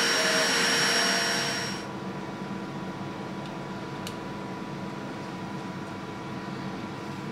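CNC milling machine's spindle running with a steady high whine over a rush of noise, which cuts off about two seconds in. A quieter steady hum remains, with a single faint click about four seconds in.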